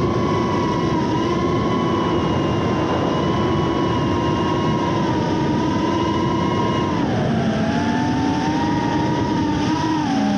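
FPV quadcopter's electric motors and propellers whining, several close pitches held steady over a rushing hiss, then dropping in pitch about seven seconds in and wavering near the end.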